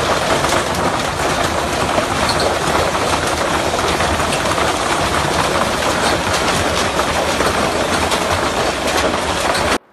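Heavy hailstorm: a loud, dense clatter of hailstones pelting the ground and nearby surfaces, full of sharp individual impacts over a continuous roar. It cuts off suddenly near the end.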